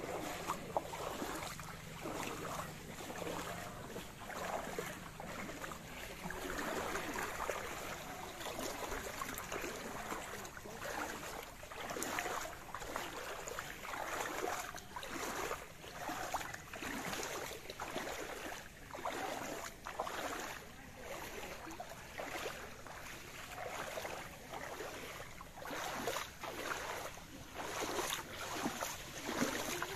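Fast-flowing floodwater in a canal, rushing and splashing in uneven surges about once a second.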